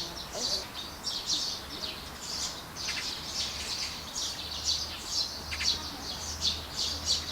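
A group of small birds chirping, many short overlapping calls in quick succession.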